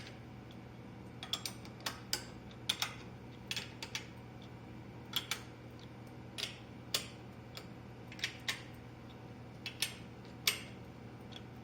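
Irregular sharp clicks and taps of a workpiece and hold-down parts being handled and set up on a keyseater, over a steady low hum.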